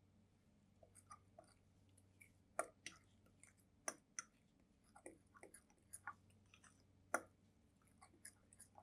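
Irregular small clicks and taps, about twenty of them, unevenly spaced, over a faint steady hum.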